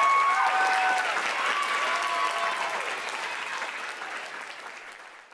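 Audience applauding, with a few whoops and cheers, at the end of a live dance performance. The applause fades out over the last few seconds.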